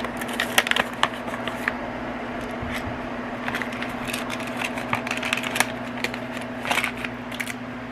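Small plastic diamond-painting accessories and their packaging clicking and rustling as they are handled and put back into their box, with irregular sharp clicks over a steady low hum.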